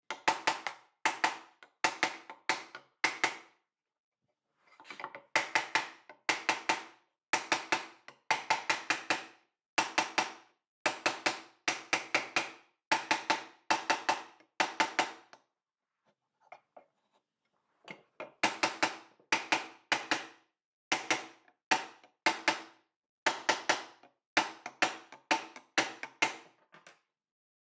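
A metal-headed hammer strikes a wooden block held against a through-dovetail joint to knock the joint together: sharp wooden knocks, several a second, in short bursts, with a pause of about two seconds past the middle.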